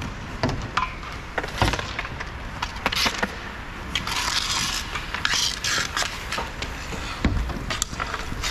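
Roller hockey play: inline skate wheels rolling on the rink surface, with sharp clacks of sticks and puck scattered throughout, and two longer scraping hisses about halfway through.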